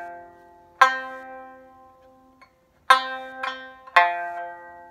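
An ordinary store-bought sanshin, with its skin head at the roughly 700 Hz tone usual in Okinawa and tuned C-F-C, plucked in single notes. Three strong notes and one lighter one each ring out and die away.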